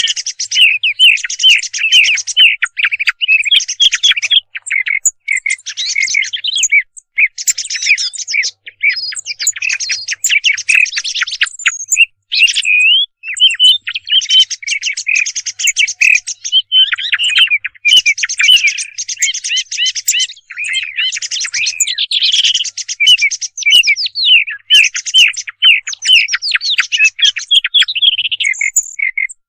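Recorded songbird calls played as a hunting lure: a dense, nearly continuous stream of quick high chirps and warbling notes, with only a few brief pauses.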